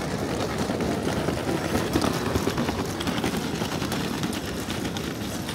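Busy city street ambience heard on foot: a steady hubbub of traffic and passers-by with scattered small clicks and footfalls.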